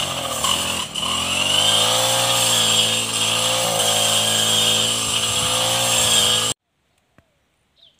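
Petrol brush cutter running at high speed while mowing grass, its engine note dipping slightly now and then as the blade takes the grass. It stops abruptly about six and a half seconds in.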